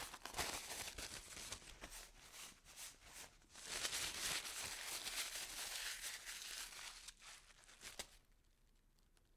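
Paper being crumpled by hand: dense crackling and crinkling with many sharp crackles, in uneven spurts, which stops about eight seconds in.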